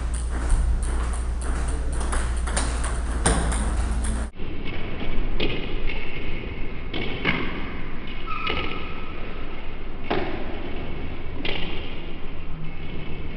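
Celluloid-style table tennis ball clicking off rackets and the table in a practice exchange, sharp knocks at irregular intervals of about a second. A low hum under the first four seconds cuts off abruptly.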